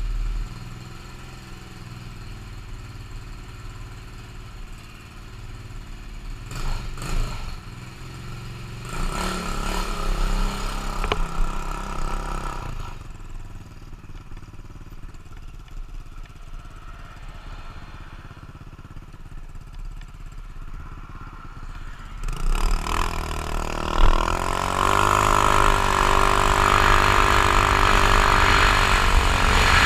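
Icebear Maddog 150cc scooter engine, fitted with a no-rev-limit CDI, pulling away and riding. It runs low with a few short revs, then revs up rising about 22 seconds in as the scooter accelerates. Loud wind noise on the helmet-mounted GoPro builds over the engine near the end.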